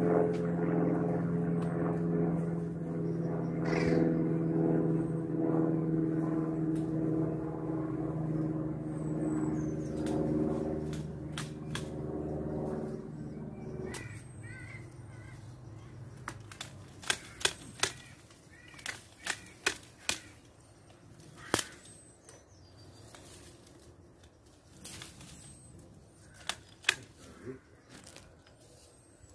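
Long-handled hedge shears clipping a small conifer: sharp clicks of the blades closing, in quick runs of three or four, from about halfway through. Before that, a steady droning hum.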